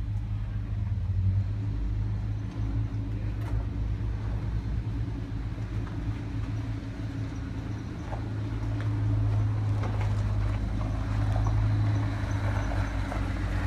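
Truck engines idling with a steady low hum, and from about eight seconds in a Toyota Land Cruiser driving slowly closer over gravel, the sound growing louder as it nears.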